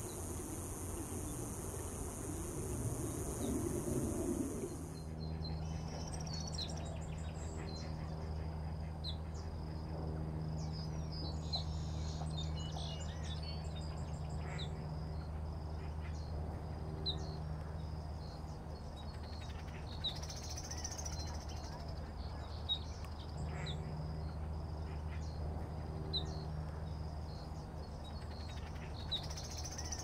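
A high, steady insect buzz that cuts off about five seconds in, followed by many short, high bird chirps over a steady low hum.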